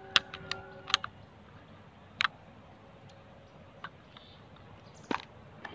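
Sharp plastic clicks and snaps from a Dragon Touch Vision 3 action camera's clear waterproof housing as its latch and back door are worked open by hand. There are several separate clicks at irregular intervals, with longer gaps in the middle.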